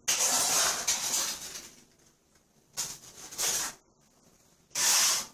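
Pressurised spray hissing in four bursts: one of about two seconds, then two short ones, then a last half-second burst near the end.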